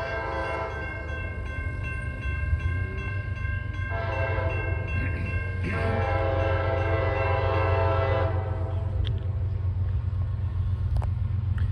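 Approaching CSX freight locomotive horn sounding a chord in several long blasts for the grade crossing, ending about eight seconds in, over the steady low rumble of the oncoming intermodal train.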